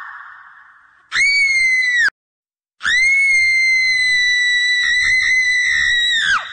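High-pitched, eerie scream: a short shriek about a second in that cuts off abruptly, then, after a brief silence, a long held scream that wavers slightly and drops sharply in pitch at the end, trailing off in a fading echo.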